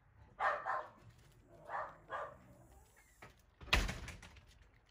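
Australian Shepherd puppies barking: about four short barks in the first two and a half seconds, then one loud thump near the end.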